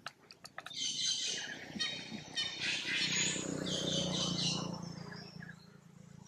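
Several bursts of high-pitched, squealing animal calls, each lasting about a second, with a few sharp clicks right at the start. A low steady hum runs underneath during the second half.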